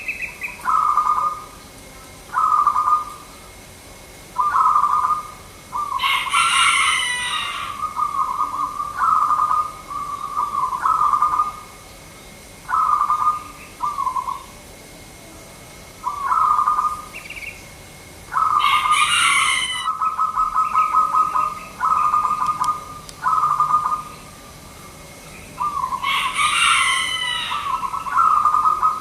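Zebra dove cooing in repeated short phrases every second or two, some running into a quick stuttering series of notes. Three times a louder, higher, harsher call from another bird breaks in over it.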